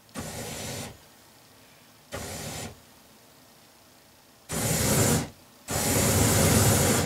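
Propane burning at a homemade jet-engine fuel manifold fed by a roofing-torch valve, rushing up in four bursts as the gas is turned up: two short, moderate ones, then two longer, much louder ones as the flames flare large.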